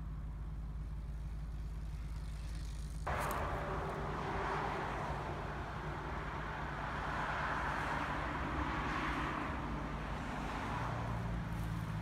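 Cars passing on a road, a rushing noise of tyres and engines that starts abruptly about three seconds in and swells and fades as they go by. Before it there is only a low rumble.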